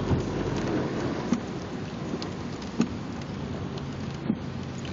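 Heavy rain falling on a car's roof and windshield, heard from inside the cabin, over a steady low engine idle. A short knock comes about every second and a half from the windshield wipers.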